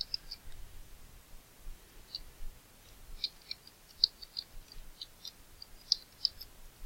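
Light clicks from a computer mouse and keyboard in use, coming in small irregular clusters with short gaps between.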